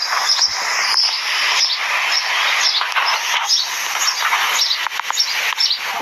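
Birds chirping over and over, short high calls over a steady rushing noise.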